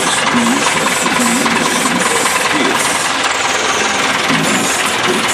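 Massey Ferguson tractor engine running steadily, loud and close.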